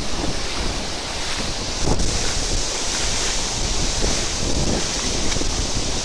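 Steady rush of a tall waterfall and shallow water running over rocks at its foot, with wind and spray buffeting the microphone in uneven low gusts.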